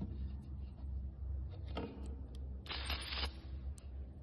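Aerosol can of spray foam giving one short hiss of about half a second, a little before three seconds in, with a few faint clicks before it. A steady low hum runs underneath.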